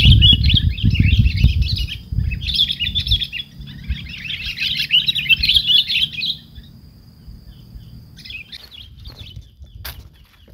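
Sooty-headed bulbuls (kutilang) chattering in rapid runs of harsh chirps, with a short break about two seconds in; the chattering stops about six seconds in, and a few faint chirps follow near the end. A low rumble runs underneath, strongest in the first two seconds.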